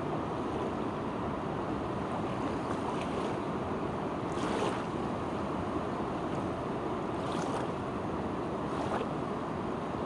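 Fast-flowing river water rushing steadily, with a few brief louder splashes of waves, about halfway through and twice near the end.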